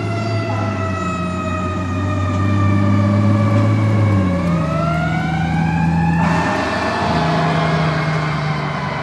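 Fire truck siren wailing over a low hum. Its pitch slowly falls for about four seconds, then rises again, and a hiss joins it about six seconds in.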